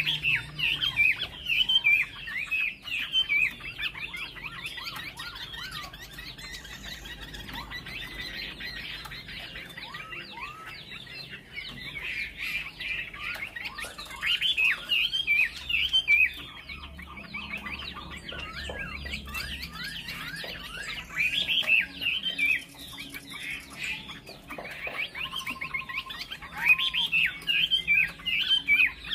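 Chinese hwamei (melodious laughingthrush) singing in bouts of rapid, varied whistled phrases and chatter, with quieter pauses between the bouts.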